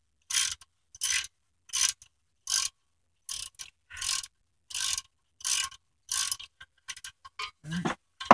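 Socket ratchet wrench clicking in a steady rhythm of long strokes, a little over one a second, as a loosened bolt is run out; near the end the strokes turn short and quick.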